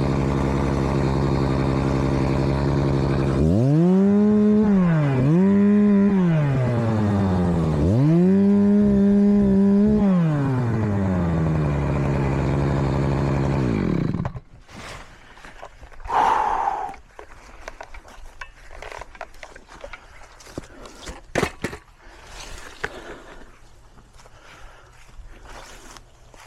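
Small two-stroke engine, most likely a chainsaw, idling, revved up three times in quick blips, settling back to idle, then shut off about fourteen seconds in. After that, quieter scattered knocks and rustling.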